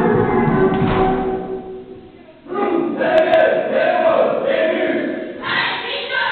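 Schoolchildren singing together as a group with music. The sound fades almost away about two seconds in and picks up again sharply half a second later.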